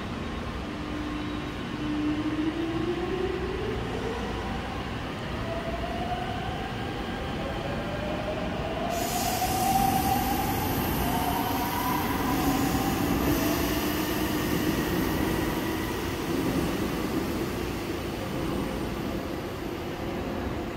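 Seoul Subway Line 5 electric train pulling away from the platform. Its motors whine in several tones that rise in pitch over about ten seconds, over a steady rumble of wheels on rail.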